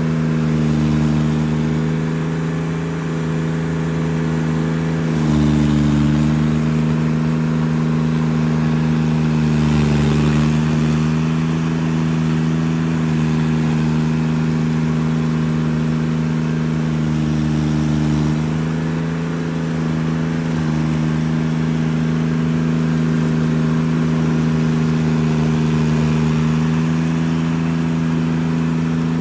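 Carlton SP7015 TRX tracked stump grinder running at working speed while its cutter wheel grinds into a stump. The engine pitch sags briefly a few times as the cutter bites in and loads the engine, then recovers.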